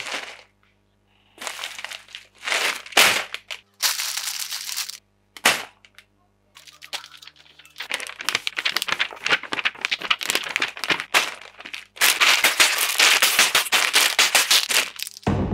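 Crinkling plastic packaging being handled: a padded mailer, then sealed plastic bags full of small plastic building bricks shuffled about. The crinkling comes in separate bursts with short pauses at first, then becomes steadier and busier from about halfway through.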